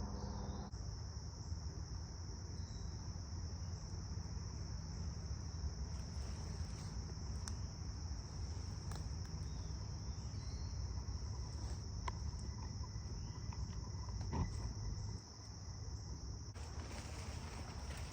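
Crickets trilling in the woods, one steady high-pitched drone, over a low rumble with a few faint ticks.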